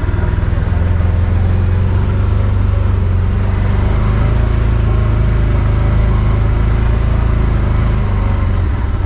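A vehicle's engine running as it drives slowly, a steady low drone with road noise.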